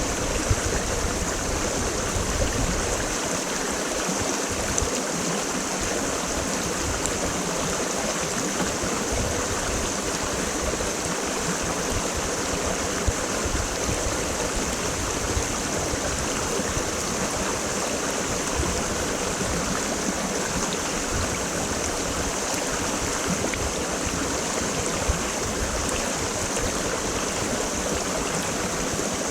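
Creek water rushing steadily, an even, unbroken sound of flowing water. A low rumble underneath drops away about three seconds in.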